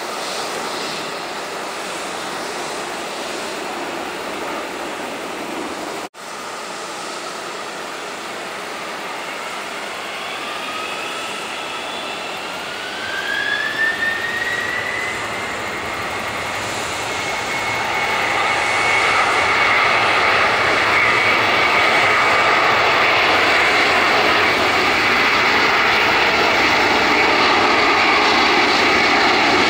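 McDonnell Douglas MD-11 freighter's three jet engines spooling up for takeoff. A whine rises in pitch from about ten seconds in, then holds as a steady high whine over a growing rush as thrust builds, getting louder over the last third.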